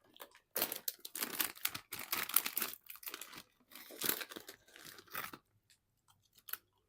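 A snack packet being torn open and crinkled: a long stretch of crackling rustle, then a second shorter bout about four seconds in, tapering to a few scattered crackles.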